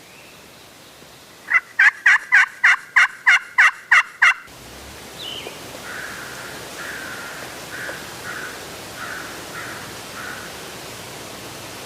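A hand-worked turkey call (slate or box call) yelping in a loud series of about ten evenly spaced notes, about three a second. After a sudden change in the background, a fainter series of about eight yelps follows.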